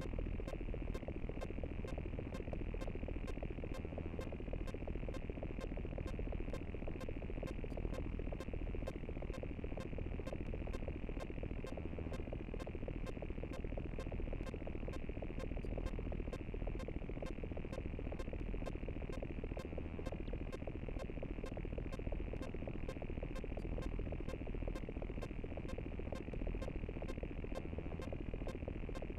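Digital glitch sound effect: steady electronic buzzing and static with rapid clicks scattered through it.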